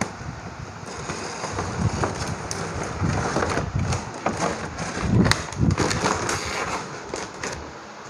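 Cardboard box and plastic wrapping rustling and crackling as a toy RC helicopter is pulled out of its packaging, with irregular knocks and scrapes, loudest about five seconds in.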